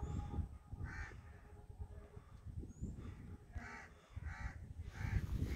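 A crow cawing: one caw about a second in, then three caws in quick succession near the end, over a low, uneven rumble.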